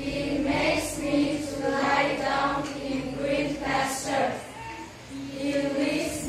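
A group of children singing a song together in chorus, with a short lull in the singing about five seconds in.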